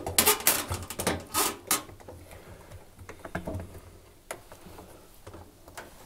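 The sprung wire band of a washing machine door seal being stretched by hand around the rubber seal on the tub: irregular light clicks, taps and rubbing. They come thickly in the first two seconds, then only now and then.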